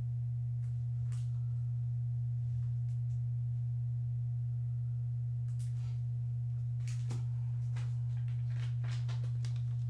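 Steady low electrical hum, one unchanging tone, with a few faint clicks and rustles of a plastic graded-card slab being handled.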